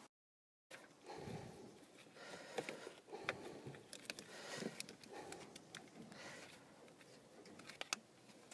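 Faint handling sounds as a 12-volt marine battery is set down into a boat's battery compartment: a low thud about a second in, then rustling and several sharp clicks as hands work at the batteries and their strap handles.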